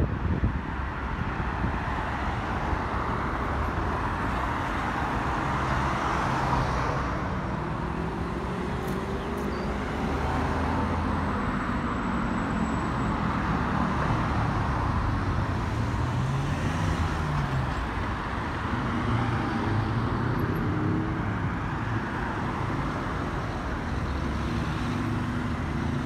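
Cars driving past on a city street: a steady traffic rumble, with engine notes that rise and fall as vehicles speed up and slow down.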